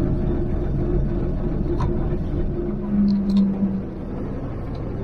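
Vintage bus's engine and running gear heard from inside the passenger saloon while the bus is under way: a steady low hum with a held tone. A second, stronger note comes in about two and a half seconds in and fades out around four seconds in, where the sound eases slightly.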